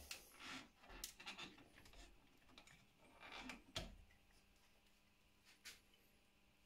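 Faint handling of a plywood drill-bit holder full of metal bits: a few light knocks and rustles of wood and the bits shifting in their holes, the loudest about four seconds in.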